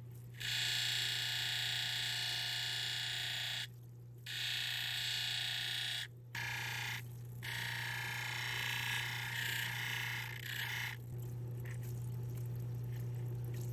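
An opal ground on a spinning 600-grit wheel of a cabbing machine: a high grinding sound that breaks off briefly three times as the stone is lifted and set back, and grows fainter near the end. The wheel's motor hums steadily underneath.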